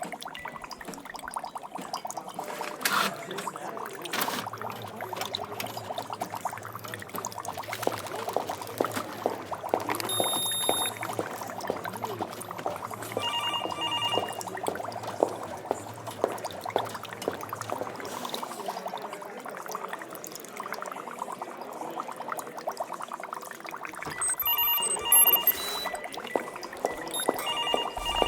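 Laboratory ambience: liquid bubbling and pouring with a dense crackle, broken by clusters of short electronic beeps a few times.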